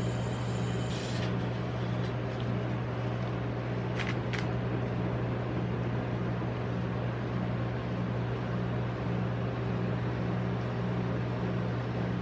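Steady low hum of the rolled ice cream machine's refrigeration compressor running, with two short clicks about four seconds in.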